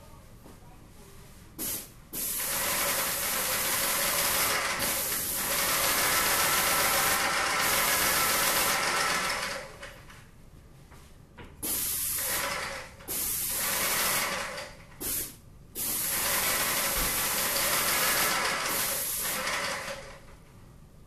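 Paint spray gun hissing as the ceiling is sprayed, in on-off bursts as the trigger is pulled and released: a long spray of about seven seconds, several shorter ones, then another of about four seconds.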